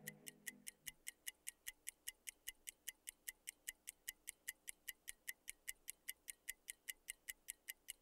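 Fast, even ticking, about five sharp ticks a second. The last of a music passage fades out in the first second.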